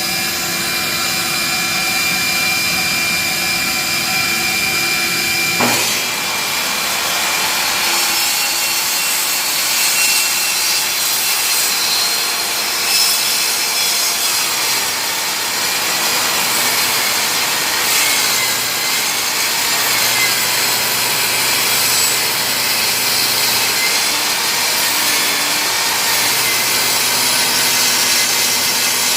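Table saw ripping a wooden plank guided by a tapering jig. The spinning blade hums with a steady tone, then about six seconds in it enters the wood and a continuous loud cutting noise takes over for the rest of the cut.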